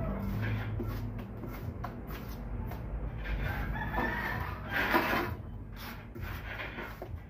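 A rooster crowing in the background, loudest about five seconds in, over scattered light clicks and scrapes of a steel trowel working mortar on a hawk.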